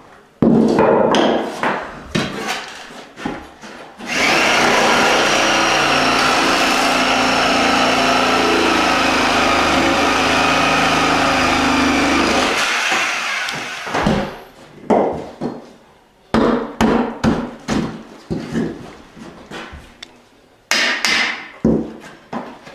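A reciprocating saw (Sawzall) runs steadily for about eight seconds, starting about four seconds in, as it cuts water-damaged particle board subfloor along a wall. Before and after the saw there are sharp knocks and scrapes of hand tools chipping the crumbling board out.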